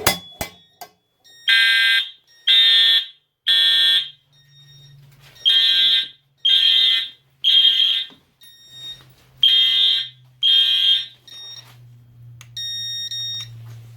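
A click as the pull station is pulled, then fire alarm horns sounding the temporal-3 evacuation pattern: groups of three short blasts with a longer pause between groups, eight blasts in all, which stops about eleven seconds in. A quieter steady buzz lasting about a second follows near the end.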